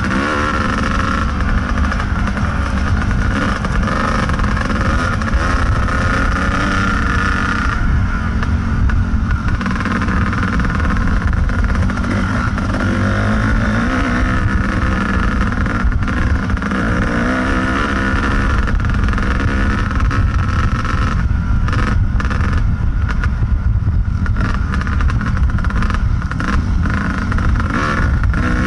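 Kawasaki KDX220 two-stroke dirt bike engine running under way, its note rising and falling as the throttle is worked.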